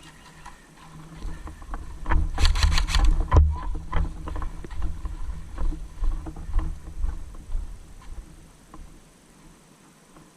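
Low rumble of movement and wind on a body-worn microphone, with a rapid burst of airsoft gun fire about two seconds in, lasting about a second. Scattered clicks and rustling follow.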